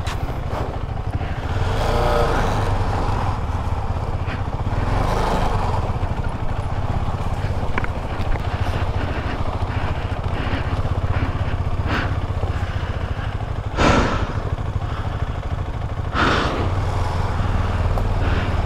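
KTM 250 Adventure's single-cylinder engine running steadily under way on an off-road trail, heard through a helmet-mounted camera with a haze of wind and riding noise. Two brief louder rushes of noise come late on.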